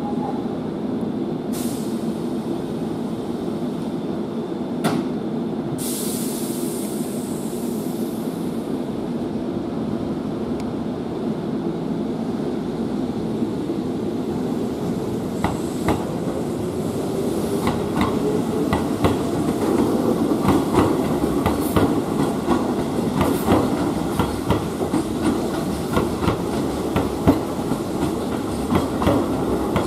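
Keihan 2400-series electric train standing at the platform with a steady hum and a few short bursts of air hiss, then pulling away: its motor whine rises in pitch and the wheels clatter faster and louder over rail joints and points.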